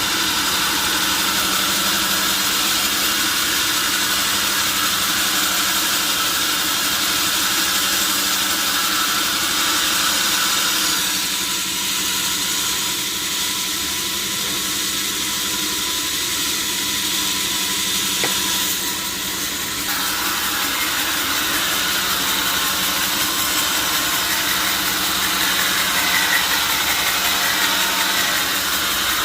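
Sawmill saw machinery running steadily with a constant hum and a high hiss; the sound changes in character from about 11 to 20 seconds in.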